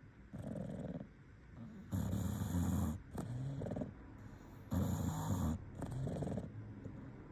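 English bulldog snoring in its sleep: a softer snore, then two loud snores about three seconds apart, each followed by a shorter, softer one.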